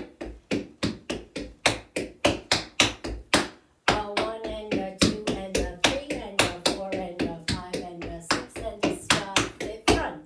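Metal taps on tap shoes striking a wooden tap board in quick rhythmic tap-dance steps, about four or five taps a second, with a short break a little under four seconds in.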